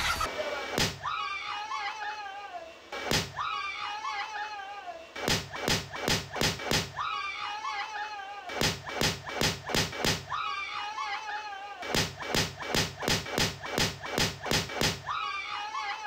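A giant rubber balloon bursts with a sharp bang, followed by screaming. The bang and scream repeat several times as an edited replay, with runs of quick repeated bangs at about three a second.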